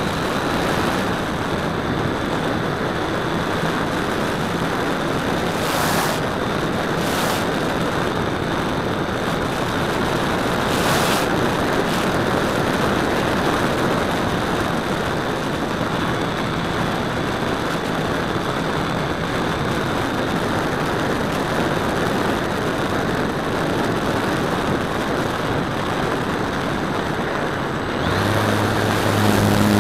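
Onboard sound of a radio-controlled model airplane in flight: its propeller and motor run steadily under a rushing wash of airflow, with a few short crackles. Near the end the sound gets louder and a low hum comes in.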